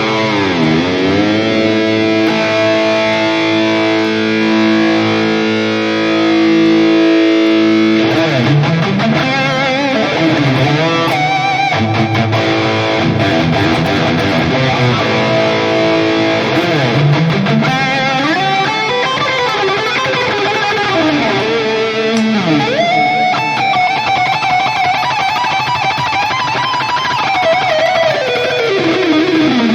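Electric guitar played through a NUX MG-30 modeling unit: a sustained chord rings for about the first eight seconds, then a lead line takes over, its notes gliding widely up and down in pitch.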